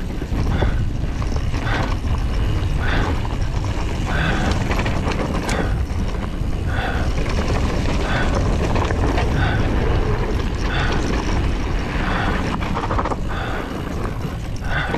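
Wind buffeting the microphone of a camera riding on a mountain bike descending a dirt trail, a steady low rumble mixed with tyre and frame rattle. Short squeaks come through every second or so.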